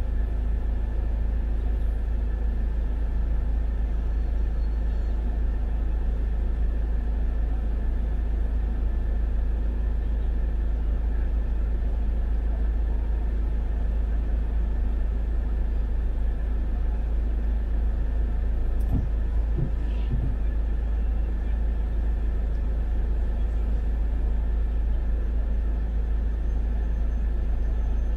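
Steady low rumble inside a car's cabin as it idles and creeps in heavy traffic, with a couple of soft knocks about two-thirds of the way through.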